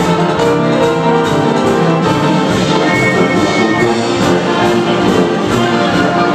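Live band playing ragtime dance music, with brass and a steady beat.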